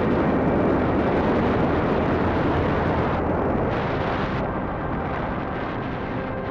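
Motorcycle riding at speed, with heavy wind rushing over the microphone above the low engine rumble, easing slightly toward the end.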